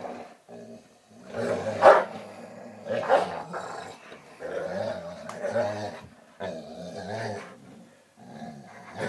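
Two dogs growling in play while tugging on a rubber toy: a series of growls with short gaps, the loudest about two and three seconds in. This is playful tug-of-war growling, not a fight.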